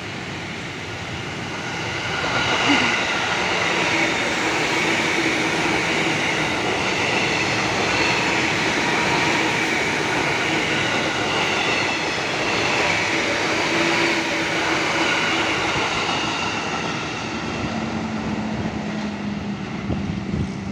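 A JR 203 series electric commuter train passing close by on the track, with a steady rush of wheels on rail and a faint high wavering whine. It swells about two seconds in and eases off near the end.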